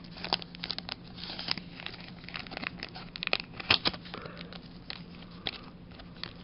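A foil Pokémon Burning Shadows booster pack wrapper crinkling and being torn open by hand: an irregular run of sharp crackles and rustles.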